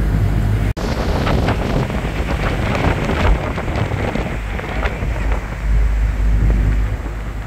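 Wind buffeting the microphone on a moving tour boat over the low, steady drone of the boat's engine. The sound cuts out for an instant just under a second in.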